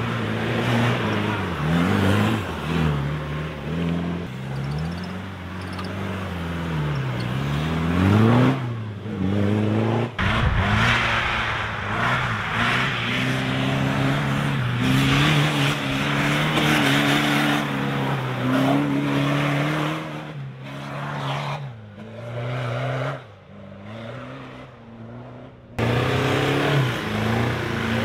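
Off-road competition 4x4 engines revving hard on steep dirt climbs, the pitch rising and falling again and again with the throttle. The sound changes abruptly twice where different runs are cut together.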